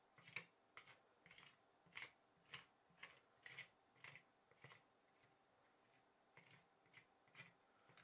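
Spatula scraping and tapping over frozen cream mixture spread on the chilled metal plate of an ice-roll maker, in short quiet strokes about two a second, with a pause around five seconds in before a few more strokes.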